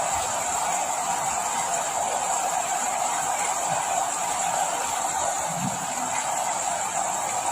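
Steady rain, an even hiss of noise that holds at one level without pauses.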